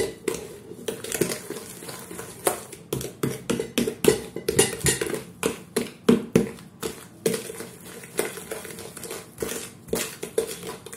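A fork stirring butter and sugar in a large mixing bowl by hand, clinking and scraping against the bowl in a quick, uneven run of strokes.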